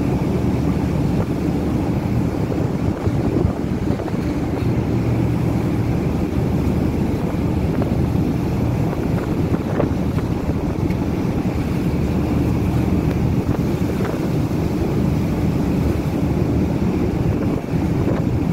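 Gale-force wind buffeting the microphone on the deck of a cross-Channel ferry, a loud steady rush. Beneath it runs the low steady hum of the ship's diesel engines and the sea.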